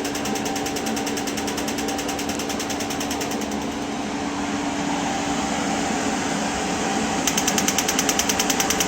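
Magnetic therapy stimulator pulsing: rapid, even ticking of about nine clicks a second over the steady hum of its air-cooling fan. The ticking fades out partway through and comes back louder near the end.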